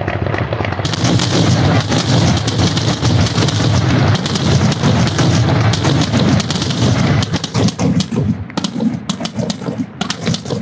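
Dense barrage of fireworks going off close by: rapid, overlapping bangs and crackling, loud enough to shake a truck's glass, thinning to scattered separate cracks near the end.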